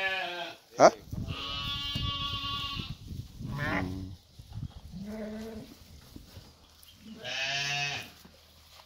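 Sheep bleating, several separate calls: a long bleat about two seconds in, two shorter ones after it, and another near the end. A short sharp knock comes just before the first second.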